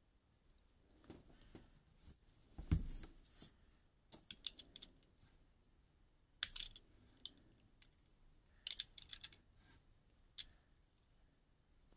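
Combination pliers snipping through a wired earphone cable by its 3.5 mm jack, with a sharp snip and thump about three seconds in, then a snap-off utility knife cutting and scraping the cable's plastic insulation in scattered clicks and snips.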